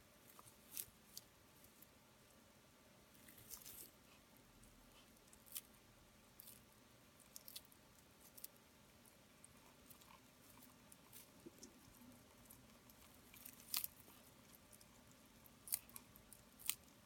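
Faint, irregular crunching clicks: a northern blue-tongued skink chewing a dubia roach, its jaws cracking the roach's hard shell now and then. The loudest crunches come a little past the middle and near the end.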